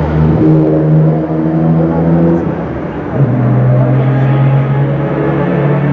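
Sports car engines at high revs going past on the race track, a steady, loud engine note that drops sharply in pitch about three seconds in as a car passes.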